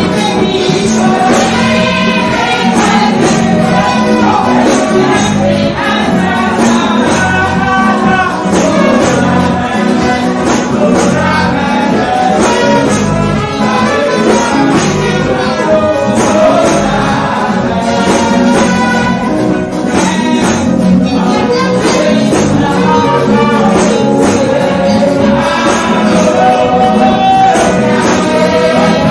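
Live gospel song: a girl singing into a microphone over loud amplified accompaniment with a steady beat.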